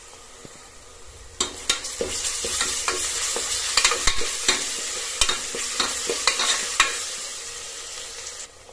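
A metal spoon stirs and scrapes sliced onions and ginger-garlic paste frying in oil in a pressure cooker pot, with sizzling and repeated clinks of the spoon against the pot. It starts about a second and a half in and stops suddenly just before the end.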